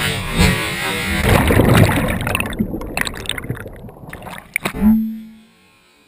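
Water rushing and bubbling loudly around a GoPro camera plunged into water after a jump, with a few sharp knocks. The sound cuts off abruptly about five seconds in.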